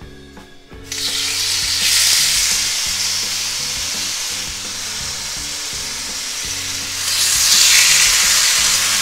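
Marinated pork chops sizzling as they hit a hot grill pan greased with canola spray: the sizzle starts suddenly about a second in and swells again near the end as a second chop goes in.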